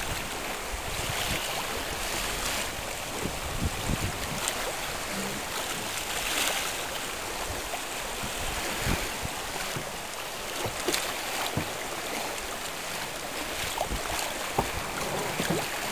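Water washing and lapping with wind on the microphone, in swells, and a scattered few small knocks and clicks.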